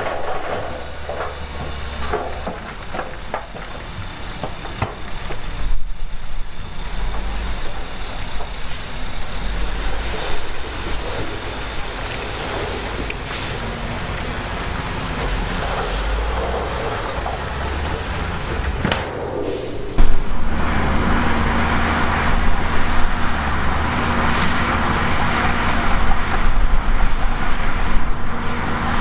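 Heavy diesel earthmoving machinery running, with a short hiss of air about 13 seconds in. From about 20 seconds in the engine noise gets louder, as if working harder under load.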